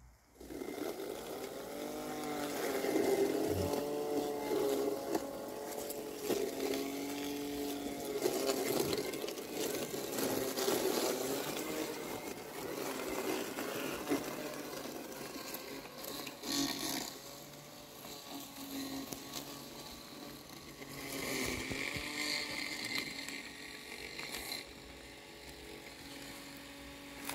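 Landxcape LX790 robotic lawn mower's brushless blade motor starting up and whirring as the mower cuts through tall, wet weeds, its pitch dipping and rising again and again. A higher whine joins for a few seconds near the end.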